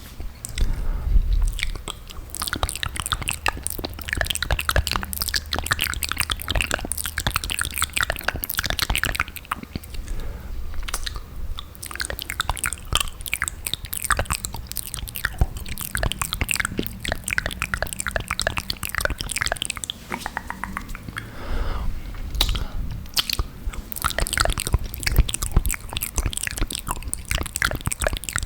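Wet mouth sounds right at the microphone: a dense, rapid stream of lip smacks, tongue clicks and saliva crackles.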